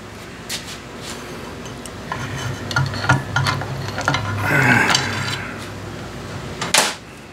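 Flat screwdriver clinking and scraping against metal inside a Mercury 40 hp outboard's gearcase as the pinion gear is worked onto the driveshaft splines. The scattered clicks end in a sharp clack near the end.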